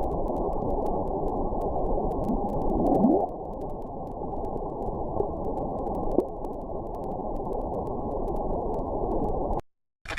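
A low, muffled rumbling sound effect that starts and stops abruptly, with a short rising sweep about three seconds in.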